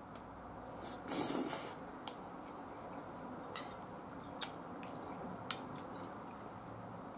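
Metal spoon clinking and scraping against a ceramic bowl of curry rice while eating, with a louder half-second rasp about a second in and several light clicks after it.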